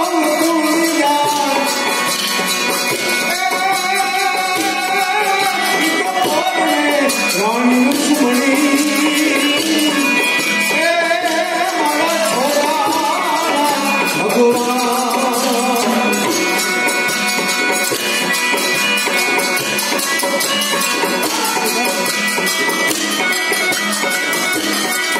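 Live Indian folk music: a singing voice over steady, rapid jingling percussion, without a break.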